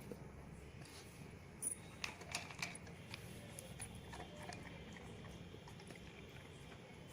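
Faint clicks and taps from a Labrador, with a short cluster of them about two seconds in.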